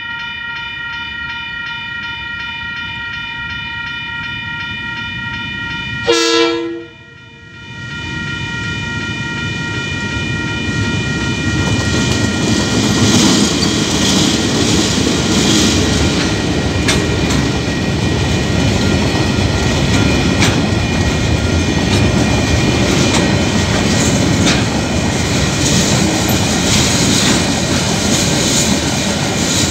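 Level-crossing warning bells ringing steadily, cut by a short train-horn blast about six seconds in. The noise of a diesel-hauled freight train then builds as two locomotives pass, followed by the rumble and clatter of container wagons over the crossing.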